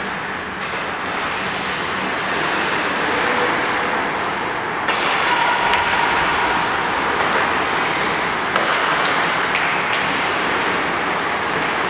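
Ice-rink practice sounds: hockey skates scraping and carving on the ice, with a few sharp stick-and-puck clacks. The scraping grows louder about five seconds in.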